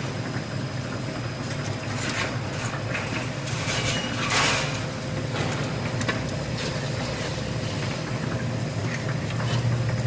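Omega-profile furring channel roll forming machine running: a steady low mechanical hum from the drive and roller stations as the metal strip feeds through, with a few brief louder noises about two and four seconds in.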